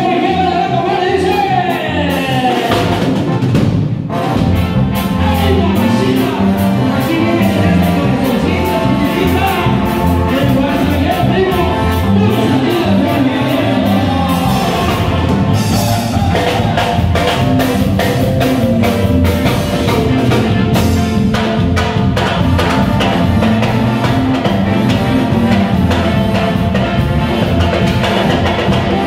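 Live tierra caliente band playing a song: electronic keyboards, bass guitar and a drum kit keeping a steady beat, with a male singer's voice over them through the PA.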